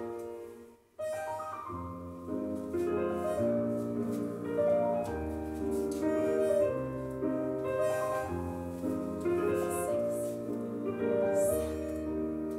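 Piano accompaniment for a ballet-class waltz, chords and bass notes changing at a steady pace. The music fades out just before a second in and a new passage starts right after.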